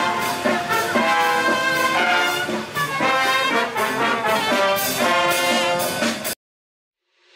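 Brass band of trombones and trumpets playing over a steady beat. The music cuts off suddenly about six seconds in, leaving silence.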